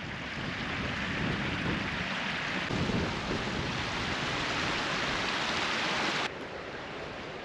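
Steady rushing of a stream flowing under a stone bridge, mixed with a low rumble of wind on the microphone. The sound drops suddenly to a quieter level about six seconds in.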